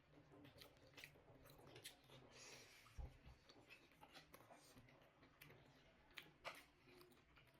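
Faint chewing of momo dumplings, with scattered short mouth clicks and a low thump about three seconds in.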